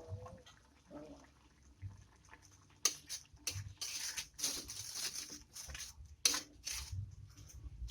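Food cooking in a pan: a few faint ticks, then from about three seconds in, irregular crackling and spattering bursts with short hisses.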